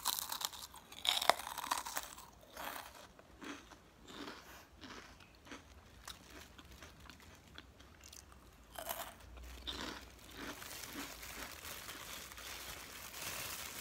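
A person biting and chewing a crisp kerupuk (Indonesian fried cracker) with no talking. The crunches are loudest in the first two seconds, then go on as softer chewing.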